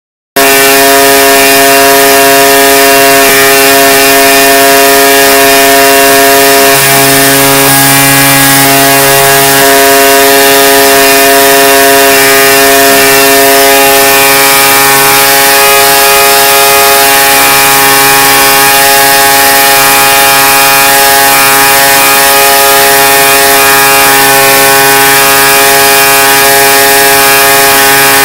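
Curtis Dyna-Fog Mini-Lite ULV cold fogger running steadily at full output, spraying a fine mist. It is a loud, even machine drone that cuts in abruptly just after the start.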